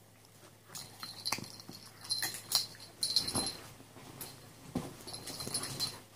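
A dachshund and a beagle play-wrestling on a leather sofa: irregular scuffling and rubbing against the upholstery, mixed with short dog whimpers and snuffles.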